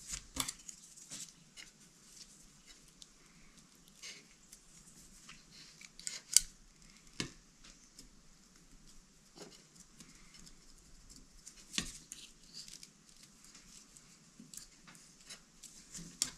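Faint scattered clicks and light taps of fingers and a small tool on a camera's plastic back door as a self-adhesive felt seal strip is pressed into its channel. A few sharper clicks come about six, seven and twelve seconds in.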